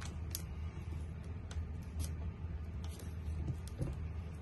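A few light clicks and taps from handling a cordless drill's click-on attachments, scattered a second or so apart, over a steady low hum.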